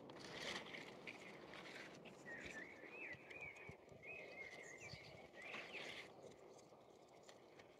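Quiet outdoor ambience: a bird sings a faint warbling phrase from about two seconds in to about four and a half, over soft rustles and light clicks.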